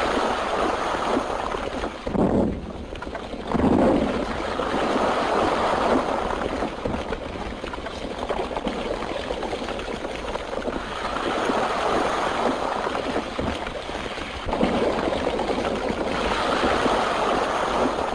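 Rock blasting on an old film soundtrack: explosions on a cliff face, followed by a dense rushing noise of falling rubble and rumble. The noise surges again about three and a half seconds in and later on.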